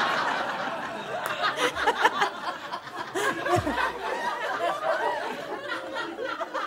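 Comedy-club audience laughing at a punchline, loud at first and dying down over the first second or so to scattered chuckles and murmurs.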